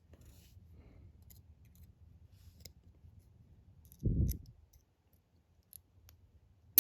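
Lock pick working the pins of a brass padlock: faint, scattered metal ticks, with a dull low thump about four seconds in. At the very end comes one sharp click as the lock gives and the tension wrench flies out.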